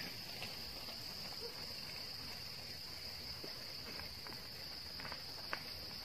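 Steady, high-pitched chorus of insects, with a couple of faint clicks near the end.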